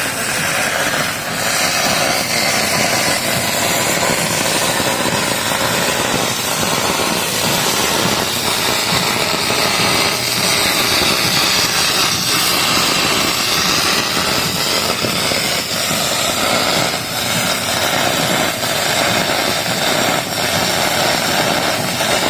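Aluminum welding arc from a Miller XMT welder, burning steadily with a hiss and light crackle through one long bead, then cutting off suddenly at the end.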